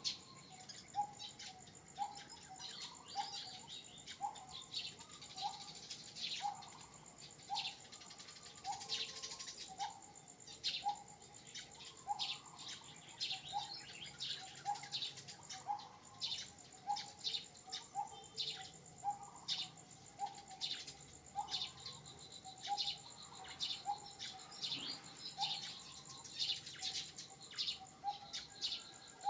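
Birds calling: one bird repeats a short, low note a little under twice a second, over many quick high chirps from other birds and a steady high insect whine.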